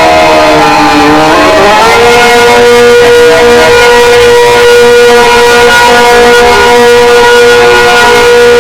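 Outdoor tornado warning siren sounding loudly in a wail: its multi-tone note dips, climbs back up about a second and a half in, holds steady for several seconds, then begins to fall near the end.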